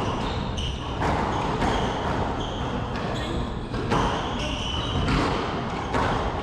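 Squash rally: the ball cracks off rackets and the court walls with sharp hits every half second to a second, mixed with brief high-pitched squeaks.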